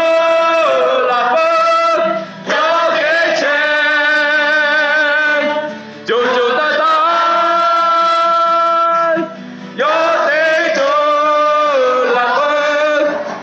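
Singing in Lahu to acoustic guitar, with a man's voice most prominent. The sung lines end on long held notes, with three short breaks between them.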